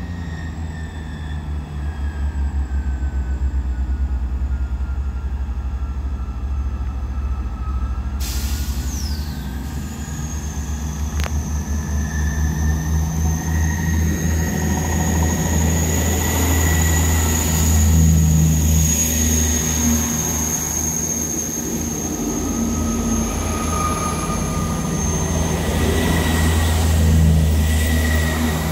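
British Rail Class 158/159 diesel multiple units running slowly through a station: the deep, steady throb of their underfloor diesel engines, with a thin, high-pitched wheel squeal held for many seconds, growing louder as the train passes close by about halfway through.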